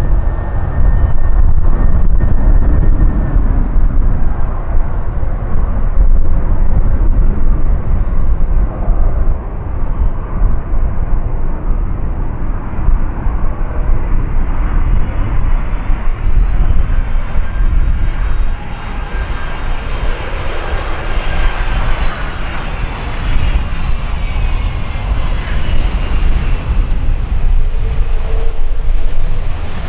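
Boeing 767-300 freighter's twin jet engines on approach and landing: a heavy low rumble with a high engine whine that rises in pitch about halfway through and falls again in the last few seconds as the jet goes past.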